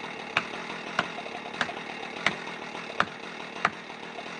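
Felling wedges being hammered into the back cut: six sharp knocks, evenly spaced about two-thirds of a second apart, over a chainsaw idling.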